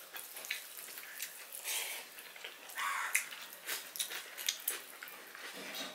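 Two people eating fried rice with their hands: chewing and mouth noises, with fingers working the rice on the plates, in short irregular bursts.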